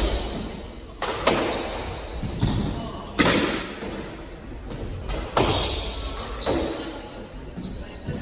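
Squash ball cracking off racquets and the court walls in a doubles rally, about one shot a second, each hit echoing around the enclosed court, with sneakers squeaking on the wooden floor between shots.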